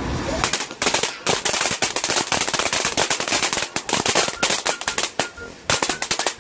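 Ground fountain firework spraying sparks and crackling, a dense rapid run of sharp pops that starts about half a second in, with a brief lull near the end.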